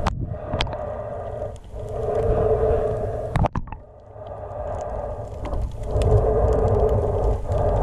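Muffled underwater water noise with a low rumble, swelling and fading every couple of seconds, and a sharp knock about three and a half seconds in.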